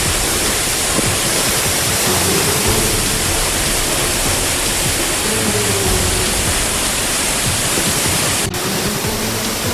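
Loud, steady rushing of water, an even hiss across all pitches, broken for an instant about eight and a half seconds in.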